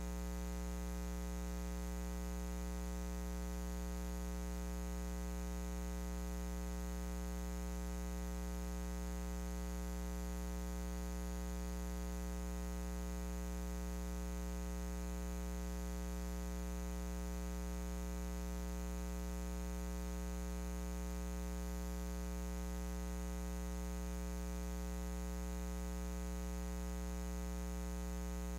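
Steady electrical mains hum with a stack of buzzy overtones and faint hiss, unchanging throughout.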